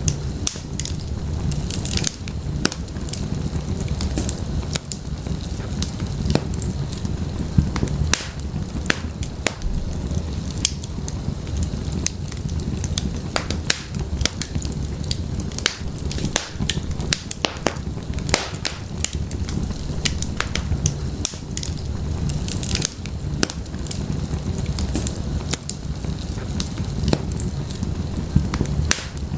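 Wood fire burning in a fireplace: a steady low rumble of flames with frequent sharp, irregular crackles and pops from the burning firewood.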